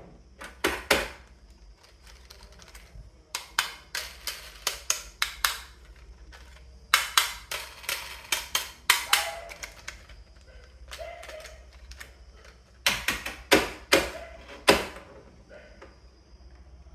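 Glass marbles clacking and knocking as they roll and drop along a wooden HABA-style marble run, in several quick clusters of sharp clicks with pauses between.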